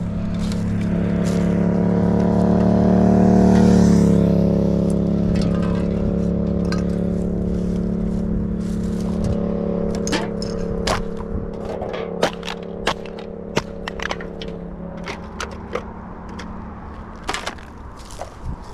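A vehicle passing on the road: its engine hum swells, peaks and drops slightly in pitch about four seconds in, then slowly fades. In the second half come many sharp clicks and crackles of plastic litter being picked up and handled.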